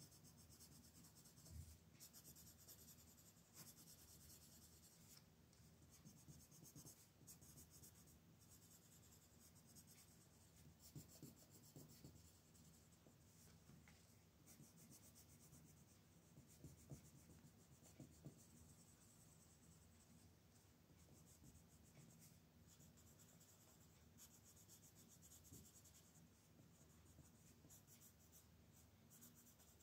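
Faint, continuous scratching of a wooden colored pencil on sketchbook paper, in quick repeated shading strokes.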